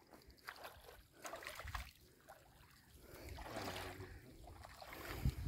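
Water splashing and trickling as a fish is scooped up in a landing net in shallow water and the net is lifted, water running out through the mesh; the splashing swells about three seconds in.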